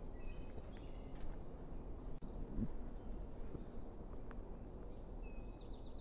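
Brown creeper singing: a short phrase of very high, thin notes stepping downward about three and a half seconds in. Other brief high chirps come near the start and end, over a steady low rumble of wind noise.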